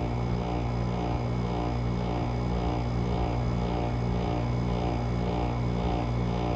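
Samsung rotary compressor in a GE 5050 BTU window air conditioner running steadily, warmed up after a cold start at 15°F: a deep, mean-sounding hum with a throb that pulses about twice a second.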